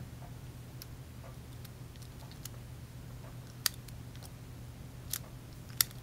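Faint scattered clicks and taps as a brass Best padlock is turned over in the hands, the clearest about two thirds of the way through, over a low steady hum.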